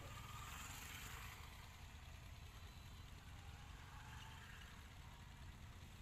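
Faint, steady engine idling: a low, even hum with no change in speed.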